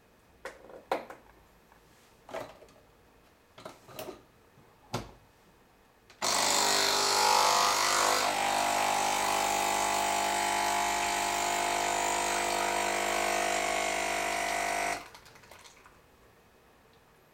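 A few clicks and knocks, then a Nespresso capsule machine's pump starts suddenly and runs with a steady buzz for about nine seconds while brewing an espresso, stopping abruptly with a brief sputter at the end.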